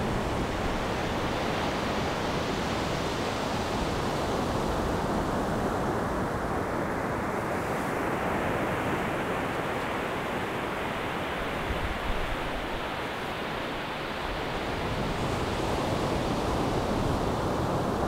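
Sea surf breaking offshore and washing up a flat sandy beach: a steady hiss of waves and foam that softens a little in the middle and builds again near the end.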